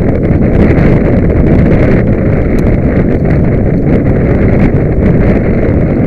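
Loud wind buffeting the microphone, a dense rumbling rush with no clear engine note.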